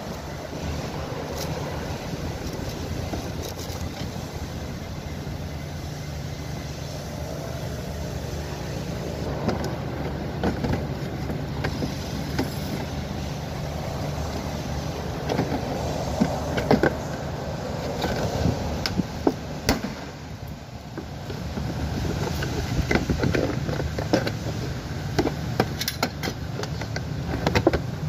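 Scattered clicks and knocks of a plastic wheel-arch liner being worked loose by hand, over a steady low mechanical hum.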